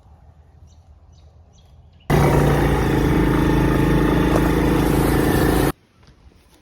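An engine running loudly and steadily for about three and a half seconds, cutting in and out suddenly, after a couple of seconds of faint background.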